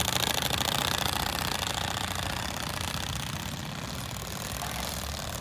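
Motorcycle-engine sound effect played from a gadget fitted to a boy's bicycle: a rapid, even putter like an idling motorbike, growing fainter as the bike rides away.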